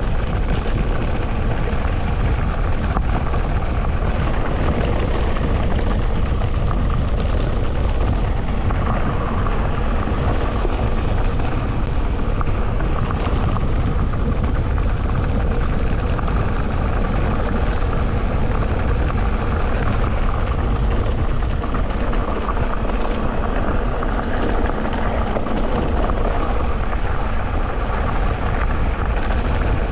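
Continuous riding noise from an electric mountain bike on a dirt trail: a steady rumble of tyres and frame over the ground with a faint steady hum underneath.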